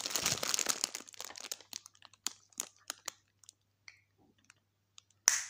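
Cellophane plastic wrapping crinkling as hands handle wrapped cosmetics: a dense crinkle for about the first second and a half, then scattered crackles and clicks, and one short loud crinkle near the end.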